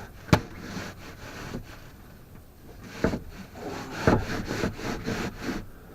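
Wooden boards being worked and forced into place: a sharp crack, then heavy knocks and a quick run of scraping, rubbing strokes of wood against wood.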